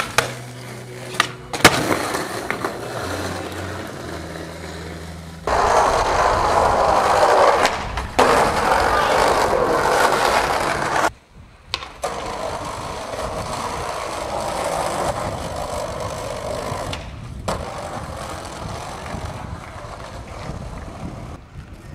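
Skateboard wheels rolling over rough pavement, a steady gritty noise that cuts off and starts again several times. Sharp clacks of a board popping and landing come about a second and a half in.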